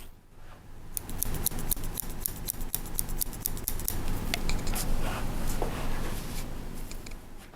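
Hairdressing scissors snipping short hair in a quick run of crisp snips, about six a second, which then slow to sparser, scattered cuts.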